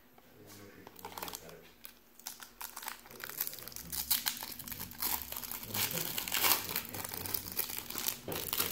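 Crinkling plastic card-pack wrappers and sleeves being handled: dense crackling that starts about a second in and grows busier and louder from about three seconds on.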